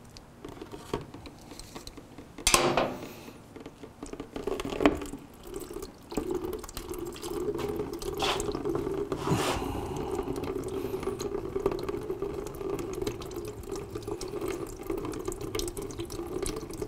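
Coolant pouring in a steady stream out of a motorcycle engine's drain-bolt hole into a plastic bucket, starting about six seconds in. Before it a few sharp knocks and clicks as the drain bolt is worked loose with a ratchet.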